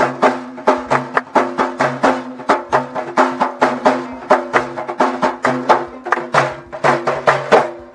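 Hand-held frame drum with a red rim, struck by hand in a fast, steady rhythm of about four strokes a second, each stroke ringing briefly.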